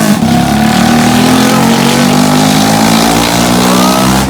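Motorcycle engine running loudly through a newly fitted aftermarket silencer, a steady, deep exhaust note whose pitch wavers slightly.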